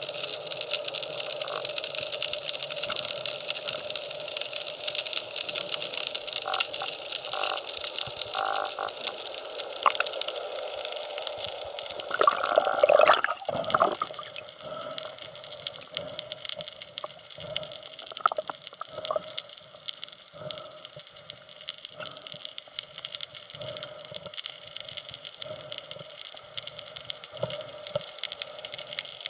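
Underwater ambience picked up by a camera in its housing: a steady high whine and hiss with fine crackling clicks throughout. A louder, noisier swell about twelve to fourteen seconds in.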